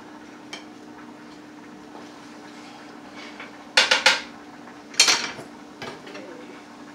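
A cooking utensil clattering against a skillet: a quick run of three clanks, a louder ringing clank about a second later, and a lighter knock near the end, over a steady low hum.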